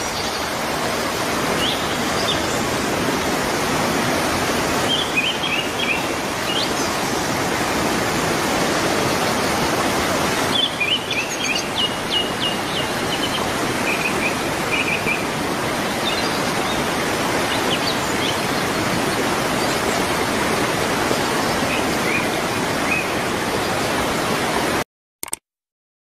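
Steady rush of water falling over rocks, with birds chirping in short bursts now and then above it. The rush cuts off suddenly shortly before the end.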